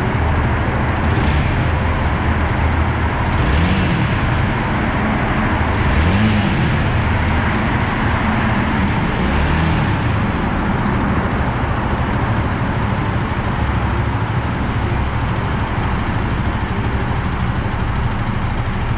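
Honda Rebel 250's single-cylinder engine running, revved up and back down three times in the first ten seconds, then idling steadily.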